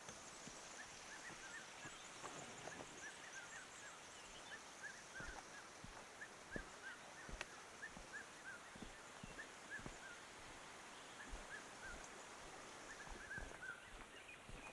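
Birds chirping in quick, repeated short notes, with faint irregular knocks of footsteps and camera handling.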